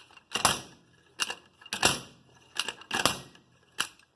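Sharp metallic clicks, about six of them spaced roughly half a second apart, each with a short ring. They come from a hand tool working a bearing puller as it draws the bearing cup out of a Corsa gearbox housing.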